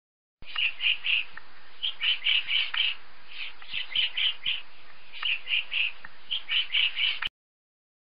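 Woodpecker calling: short, sharp call notes in quick clusters of three to five, repeated over several seconds, with the recording cutting off abruptly near the end.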